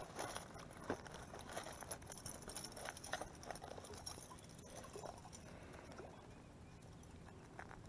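Choppy wind-driven waves lapping and splashing in shallow water, a run of irregular small splashes over a light wash of noise.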